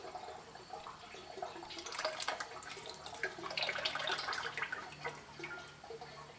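Sludgy used engine oil and motor flush draining from an oil pan into a drain pan, trickling and dripping in an irregular patter that grows busier after the first second or so.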